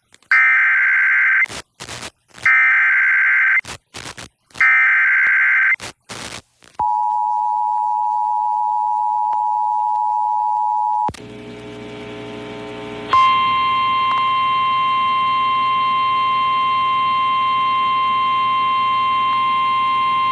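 Emergency Alert System broadcast: three screeching digital header bursts, about a second each, followed by the two-tone attention signal, a steady pair of close tones held for about four seconds. After a brief stretch of mixed lower tones, a single steady tone, slightly higher and with overtones, sounds from about two-thirds of the way in.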